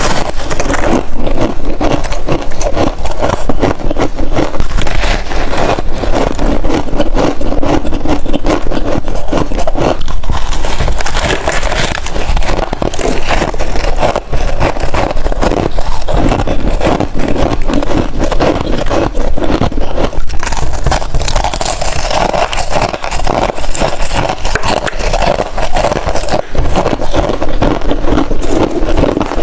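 Chunks of freezer frost being bitten and chewed close to the microphone: a dense, continuous crackling crunch.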